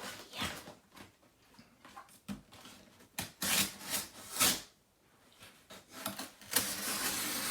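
Cardboard shipping box being cut and pulled open by hand: scraping and rustling in short bursts, loudest about three and a half and four and a half seconds in, then busier near the end.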